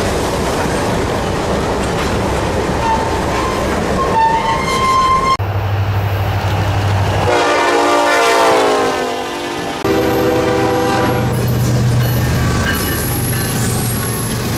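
Freight train passing with rumble and wheel noise. A diesel locomotive's horn chord sounds about seven seconds in, its pitch falling as it goes by. The sound changes abruptly around five and ten seconds in, with an engine hum and further horn tones after the second change.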